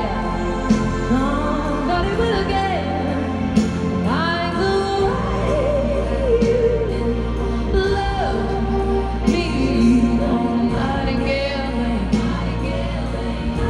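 Live concert music heard from the arena floor: a woman singing lead over a full band, with gospel-tinged, choir-like backing.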